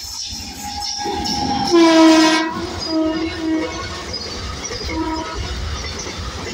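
Horn of a WAG-9HH electric locomotive sounding one loud held blast about two seconds in, then a few short toots, over the rumble and wheel clatter of a double-stack container train passing at speed.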